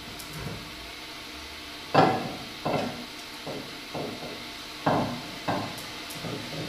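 Liquid nitrogen poured from a dewar into a plastic soda bottle, coming out in about seven uneven splashing spurts, each a sharp onset that quickly fades, beginning about two seconds in.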